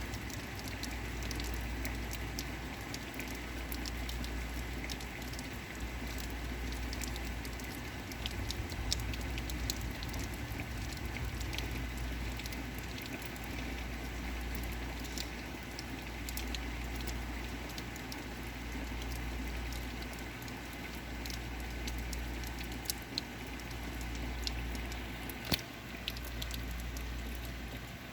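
Heavy rain falling steadily, with many individual drops pattering and tapping over a low steady rumble.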